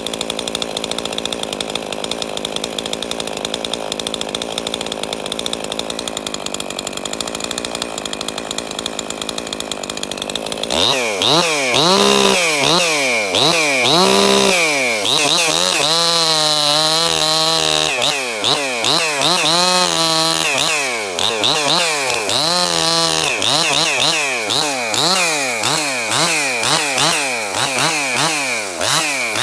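Ported Husqvarna 262XP two-stroke chainsaw running steadily, then from about 11 seconds in revved again and again. The throttle is blipped up and down, with a few longer holds at high revs, and quicker blips near the end. The saw has a worn piston ring and low compression.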